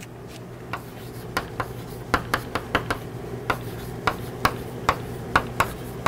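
Chalk writing on a blackboard: a run of short, sharp, irregular taps and scratches as the chalk strikes and drags across the board.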